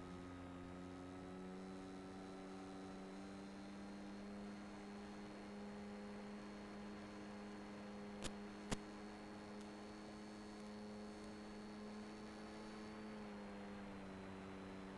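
Faint, steady hum with many overtones from the electric plane's brushless outrunner motor and propeller, picked up by its onboard transmitter audio. The pitch rises slightly early on, holds, and eases down near the end. Two sharp clicks come about eight seconds in.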